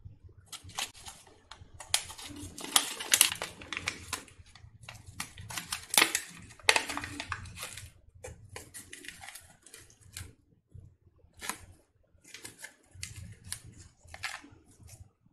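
A Magic Pops popping candy sachet being crinkled and opened in the hands: a dense run of sharp crackles, loudest in the middle, then scattered rustles as the opened pouch is handled.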